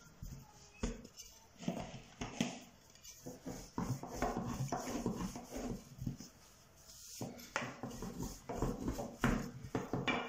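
Hands patting, folding and kneading a floured ball of yeast dough on a countertop: irregular soft thuds and rubbing.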